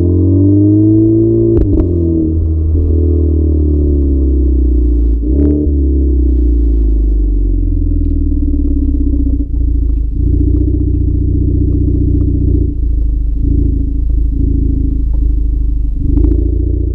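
Stock exhaust of a Seat Ibiza Cupra Bocanegra's 1.4 TSI twincharged four-cylinder running, its note rising and falling twice in the first few seconds, then holding a steady drone. A few short sharp cracks stand out, the loudest about a second and a half in and near the end.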